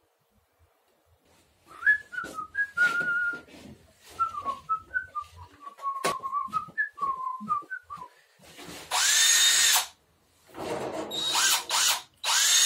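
A person whistles a short wandering tune over a few light knocks. Then a handheld power drill is run in three bursts of about a second each, its motor whine rising in pitch as it spins up.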